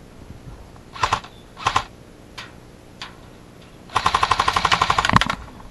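Airsoft guns firing: two short bursts, two single shots, then a fast full-auto string of about fourteen shots a second lasting just over a second near the end.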